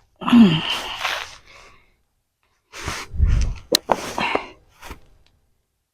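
A short wordless vocal sound like a gasp, falling in pitch. A couple of seconds later come a low thump and a few sharp clicks and knocks, as of something being handled.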